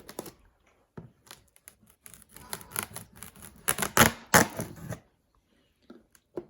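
Crackling, clicking and rustling of packaging being handled and opened, a dense run of sharp crinkles that stops about five seconds in.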